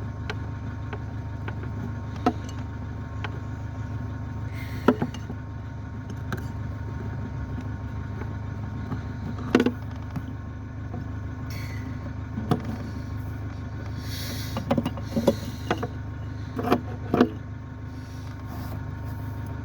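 Car engine idling steadily, with scattered sharp clicks and knocks from hand work on the car and a brief hiss about fourteen seconds in.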